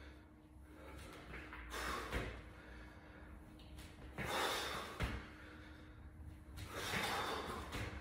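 A man breathing hard while doing burpees: three loud, forceful breaths about two and a half seconds apart, and a thud about five seconds in as his body meets the floor mat.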